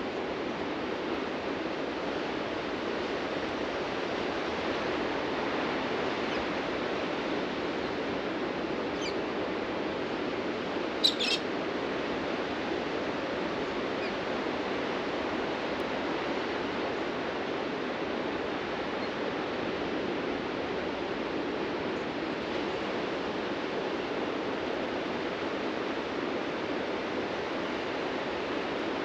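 Steady wash of ocean surf breaking on a beach. A bird gives a short call of two quick high notes about a third of the way through, with a fainter call just before it.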